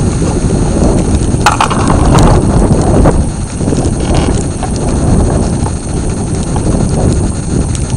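Wind buffeting the microphone: a loud, uneven low rumble, with a brief scratchier burst about a second and a half in.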